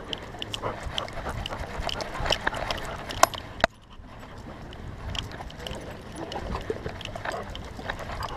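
A dog close up against a harness-mounted camera, with rustling and frequent clicks and knocks of the mount. Two sharp knocks come a little past three seconds in, and it goes briefly quieter after them.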